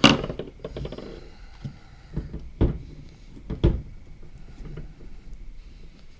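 Sway bar mount bracket and rubber bushing clicking and knocking against a steel Eibach sway bar as they are handled and pressed into place by hand. There is one sharp click at the start, then two knocks about a second apart around three seconds in, with small rattles between.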